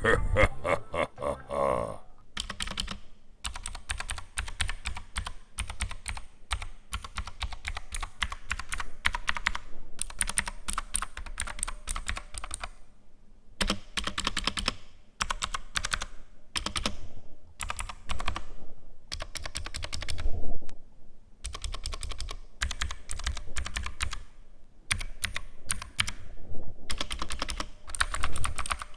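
Rapid typing on a Redragon K552 Kumara mechanical keyboard with clicky Cherry Green-equivalent switches: a dense run of key clicks and clacks, broken by a few short pauses.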